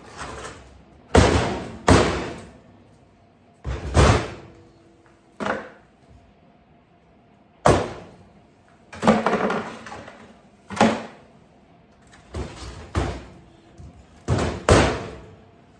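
Chunks of hardened bee fondant (sugar patty) being broken off and dropped into a bucket: about a dozen sharp thuds and knocks at uneven intervals.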